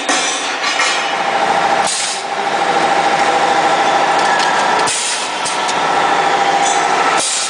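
BG60A-6C automatic cup fill-seal-cut machine running with a steady mechanical hum, broken three times by short hisses as it cycles. The machine works by pneumatic interval operation, so the hisses are compressed air from its cylinders.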